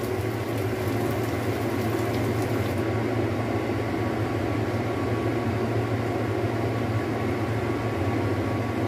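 Steady low hum of a kitchen fan over the soft simmering of stuffed bitter melon cooking in sauce in a glass-lidded wok.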